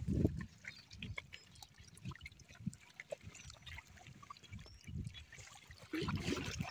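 Small sea waves lapping and trickling at the shoreline, with irregular low gusts of breeze buffeting the microphone.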